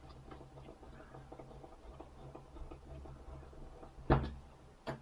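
Small screwdriver working at the plastic housing of a Samsung B2100 phone: light scratching ticks, then a sharp click about four seconds in and a smaller one near the end.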